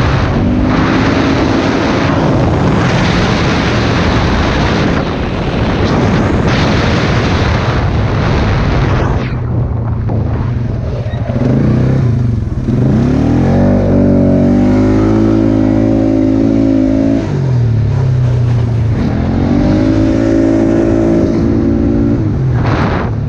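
Polaris ATV engine running while the four-wheeler is ridden, under a loud rushing noise for the first nine seconds or so. After that the engine note comes through clearly, climbing as the throttle opens and holding steady, dropping back, then climbing and holding again.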